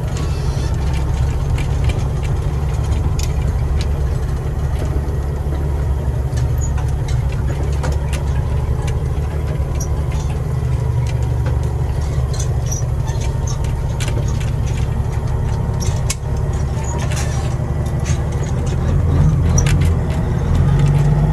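Caterpillar diesel engine of a semi truck running under way, heard from inside the cab, a steady low drone that grows louder near the end. The engine is freshly in-frame overhauled and on its break-in run.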